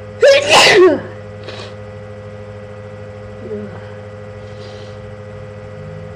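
A woman's single loud allergy sneeze, a voiced cry breaking into a noisy blast and lasting under a second. It comes about a quarter second in, and a few faint breaths and a small voiced sound follow.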